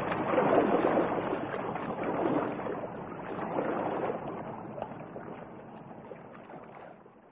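A rushing, splashy noise like moving water that fades out gradually to near silence by the end.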